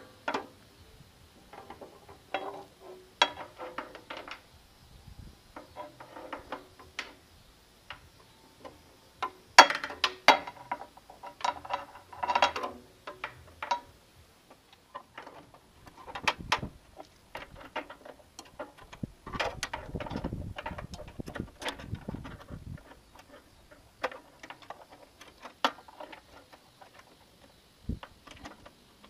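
Portable table saw's blade guard and parts around the blade being handled with the saw switched off: scattered metal and plastic clicks, clanks and rattles, with a longer stretch of rubbing and scraping about two-thirds of the way through.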